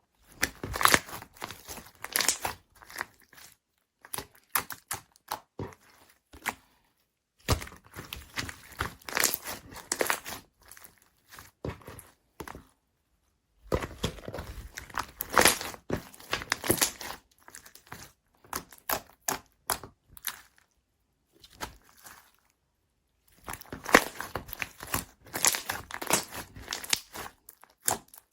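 Slime being squished and pressed by hand, giving crackly, crinkly popping in bursts of a few seconds with short pauses between.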